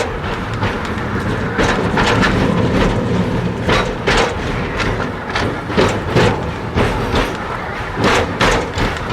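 Narrow-gauge steam train of a forest railway running, a steady rumble with frequent irregular knocks and clatter from the wheels and cars on the track.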